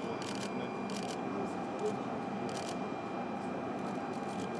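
Camera shutters clicking in short bursts several times, over a steady background of indistinct voices.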